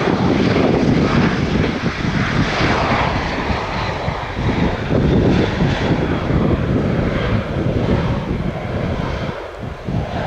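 Airbus A319 airliner's twin jet engines during landing: a loud, steady rumble with a faint high whine.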